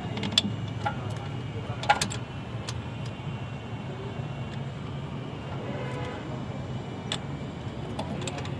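Scattered sharp metallic clicks and knocks from hand tools working on a Mercedes GL450's rear brake, loudest as a double click about two seconds in, over a steady low background hum.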